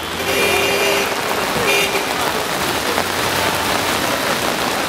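Heavy rain pouring onto a paved road, with cars driving through the standing water and their tyres hissing on the wet street.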